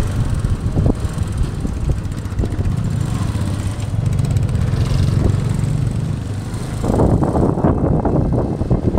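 Yamaha Fazer motorcycle engine running under way, with wind noise on the rider's microphone. The sound gets rougher and louder about seven seconds in. The owner says the bike is worn out inside.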